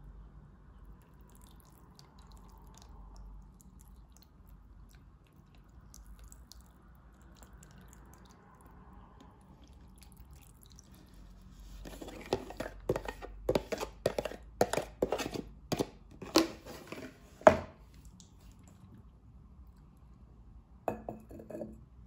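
Sharp clicks and knocks of kitchenware on a glazed clay pot, about two a second for several seconds past the middle, each with a short ring. Near the end comes a short clatter as the pot's ceramic lid is set on.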